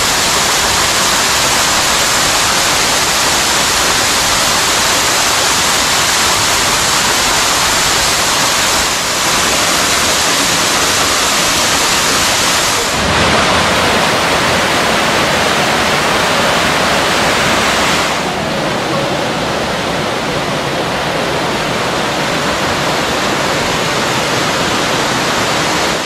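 Waterfall: a loud, steady rush of water falling over rock, changing in tone twice, about 13 and 18 seconds in.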